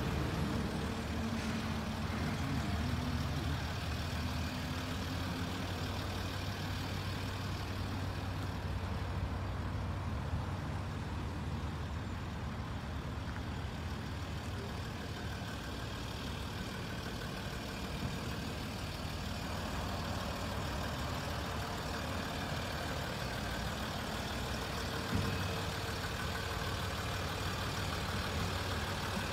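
Land Rover Discovery 3's 2.7-litre V6 diesel (TDV6) engine idling steadily, with a low hum. There is one brief knock near the end.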